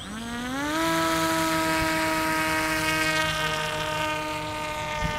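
Electric motor and rear pusher propeller of a foam flying-wing RC plane spooling up to full throttle, its pitch rising over the first second, then holding a steady whine through the hand launch.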